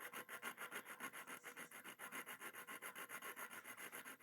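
Diamond grit flat file worked rapidly back and forth over the steel jaw edge of vintage Kraeuter diagonal cutting pliers, sharpening the cutting edge. Faint, even rasping strokes, several a second.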